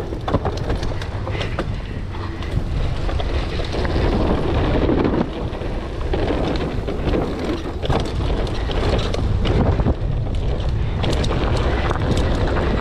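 Mountain bike riding down a wet dirt trail: steady wind buffeting on the microphone and tyre noise, broken by frequent sharp knocks and rattles from the bike over rough ground.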